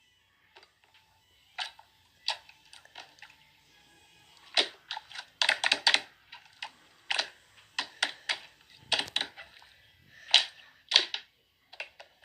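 Irregular series of short, sharp clicks and taps, some in quick clusters, like typing on a keyboard.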